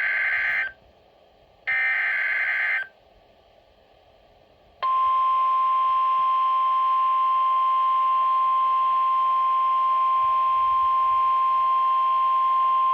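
Emergency Alert System SAME header data bursts: one ends just under a second in and another runs for about a second around two seconds in. Then about five seconds in comes a steady single-pitch attention tone, the 1050 Hz NOAA Weather Radio warning tone, announcing a severe thunderstorm warning.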